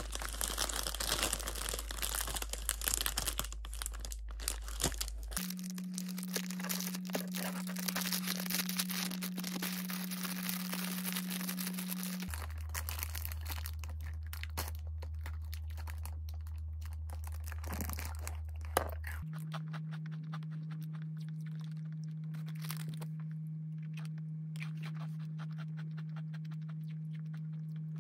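Clear cellophane wrapper of a large chocolate-coated stick snack being crinkled and torn open for about the first twelve seconds, then quieter handling, with one sharp crisp snap a few seconds later.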